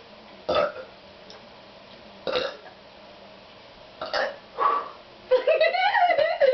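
Burps forced up after gulping Pepsi: four short burps a second or two apart, then a longer, wavering burst near the end.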